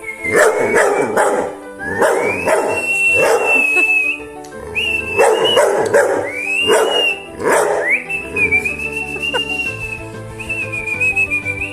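A person whistles long high notes, each starting with an upward slide, while a boxer dog howls along in short bursts, most of them in the first eight seconds.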